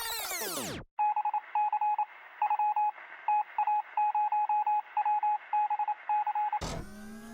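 Electronic sound effects: a swooping synthesized sweep that cuts off just under a second in, then a single thin beep tone switched on and off in an uneven run of short and long beeps. Near the end it breaks into crackling static with slowly rising whistles.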